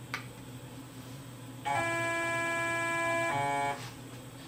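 A steady electronic tone, held for about a second and a half, then shifting to a slightly different pitch for a moment before it stops, over a low steady hum; a faint click right at the start.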